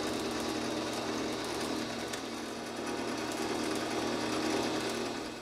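Bench drill press motor running with a small bit drilling holes in a thin aluminum disc, the recording sped up sevenfold into a rapid, steady mechanical chatter.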